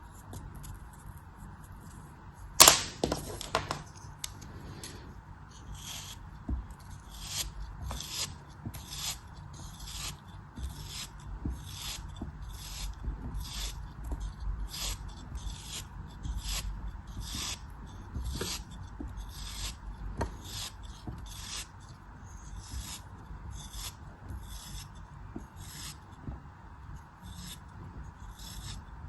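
A knife repeatedly cutting and scraping through a block of soft crafting material, each stroke a short crisp rasp, a little under two a second. There is one sharp, loud click near the start.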